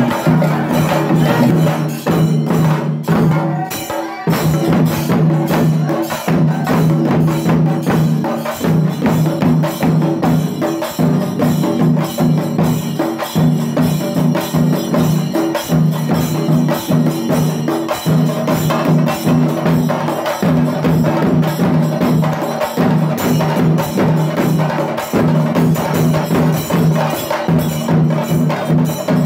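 Festival percussion music: fast, dense drumming in a phrase that repeats about every two and a half seconds.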